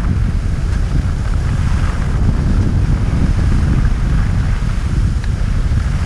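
Wind buffeting an action camera's microphone during a fast ski run, a loud steady rumble, with the skis hissing over groomed snow.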